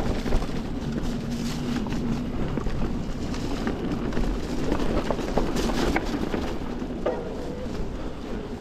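Canyon Torque:ON electric mountain bike riding down a dirt and leaf trail: tyres rolling over the ground, with the chain and frame rattling and scattered knocks over bumps, and wind on the microphone.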